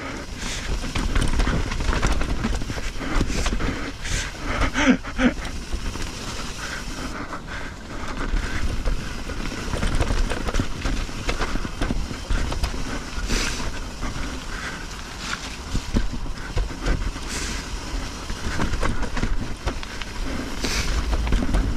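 Mountain bike riding down a dirt trail: a continuous rumble of tyres over the ground, with frequent clattering knocks as the bike rattles over bumps, and wind on the microphone.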